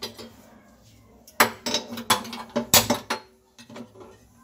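Kitchenware clinking and knocking: about half a dozen sharp clinks in quick succession starting about a second and a half in, then a few fainter knocks as a glass pot lid is taken off.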